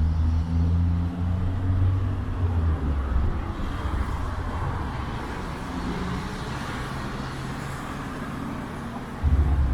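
Road traffic: a heavy low engine rumble at first, easing into the hiss of passing vehicles, then a loud engine rumble starting suddenly near the end.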